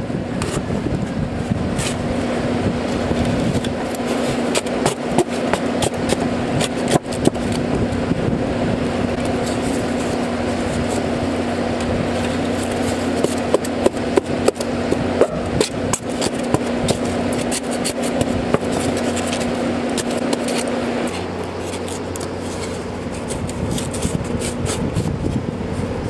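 LG 10,000 BTU window air conditioner running with a steady hum that drops lower and quieter about 21 seconds in, under scraping, rubbing and light knocks of foam insulation board being pushed in around the unit's casing.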